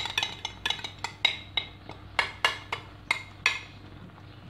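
A spoon tapping and scraping against a glass bowl as it is emptied into a frying pan, a quick irregular run of ringing clinks. The clinks stop about three and a half seconds in, leaving faint spoon-on-pan stirring.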